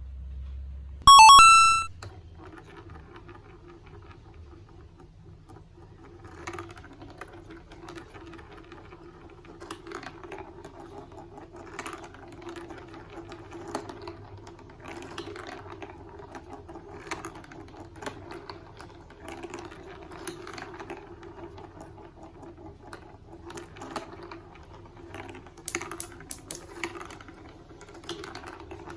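A short, bright electronic chime about a second in, stepping up in pitch, then many small irregular clicks and clacks of plastic marble-run building pieces being handled and snapped together.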